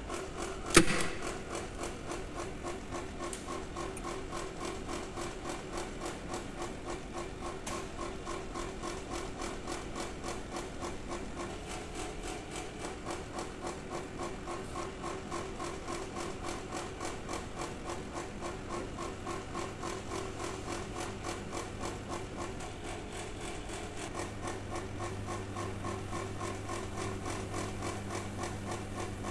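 High-voltage AC test transformer humming under a steady rhythmic ticking of a few beats a second, with one sharp click about a second in. The hum grows louder in the last few seconds as the output is raised toward 70 kV.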